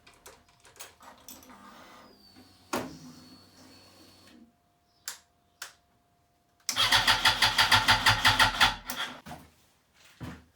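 Yamaha R1 inline-four being turned over on its electric starter: a few clicks, then about two seconds of even cranking pulses, roughly eight a second, that die away without the engine firing.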